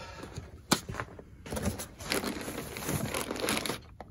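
Packing material crinkling and rustling as a hand rummages in a cardboard parts box, running for about two and a half seconds after a single sharp click.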